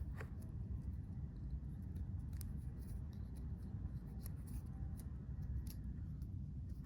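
Scattered light clicks and snips of a hand cutter working on Cat6 network cable, over a steady low hum.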